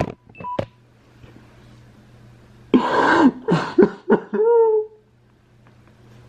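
A man sobbing: a sharp gasping breath, then a few short, wavering cries that fall in pitch, three to five seconds in. A few short clicks and brief beeps come right at the start.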